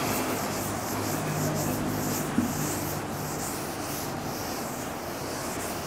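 Chalkboard duster rubbing across a chalkboard in repeated wiping strokes, erasing chalk writing.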